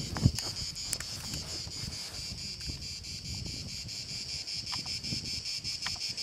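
Insects chirring steadily, a high, even sound under wind rumble and the camera rubbing against clothing. A sharp knock about a quarter of a second in is the loudest sound.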